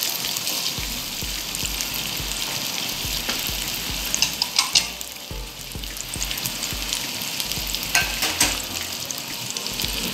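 Sliced onions sizzling steadily as they sauté in melted butter in a nonstick pan. A wooden spatula clacks and scrapes against the pan a few times, about four seconds in and again about eight seconds in.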